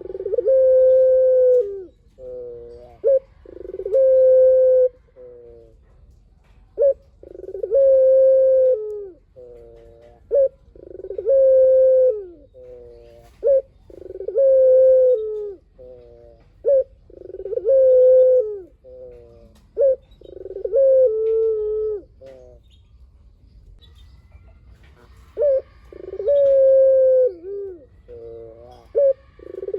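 Puter collared dove cooing in full song (gacor): repeated phrases of a few short notes leading into a long, held coo, one phrase about every three and a half seconds, with a pause of a few seconds near the end.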